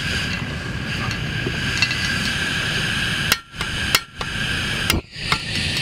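Three sharp clicks in the second half from the piezo igniter of a camping gas stove being pressed to light the burner, over a steady hiss.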